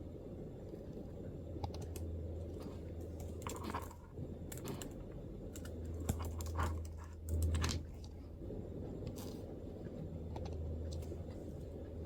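MacBook keyboard being typed on: irregular, scattered keystrokes over a steady low hum.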